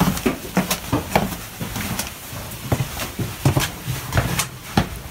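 Footsteps on the stone steps of a cave path: irregular sharp clicks and low thuds, about three a second.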